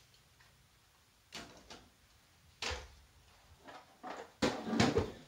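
Scattered light knocks and clicks, a few seconds apart, then a louder cluster of bumps and thuds near the end.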